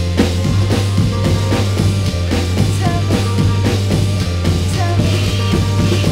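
Music: a noise rock track remixed in an illbient style, with a steady drum-kit beat over a low, droning bass.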